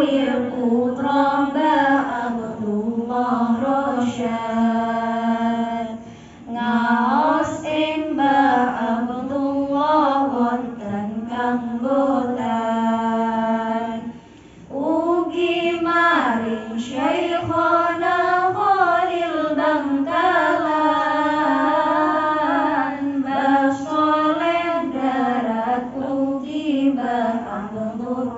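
A young woman sings an Islamic devotional song (sholawat) unaccompanied into a microphone, in long ornamented phrases that glide in pitch. She breaks twice, briefly, for breath.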